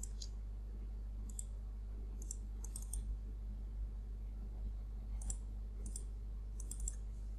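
Computer mouse clicking in short, scattered clicks while a CAD circle is drawn and its radius constraint is set. A steady low electrical hum runs underneath.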